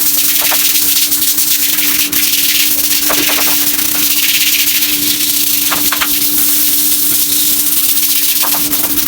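A steady hissing spray over a constant hum, with a few light clicks.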